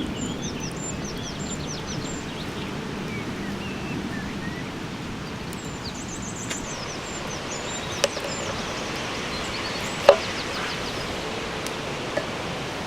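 Small birds singing and chirping outdoors over a steady background hiss, with a few sharp knocks: one about eight seconds in, a louder one about two seconds later, and a faint one near the end.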